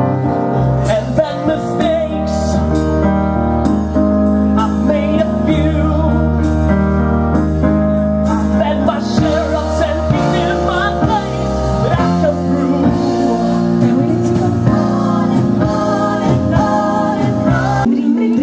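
Live band music with sung vocals over a full band, with frequent drum hits. The sound thins abruptly just before the end.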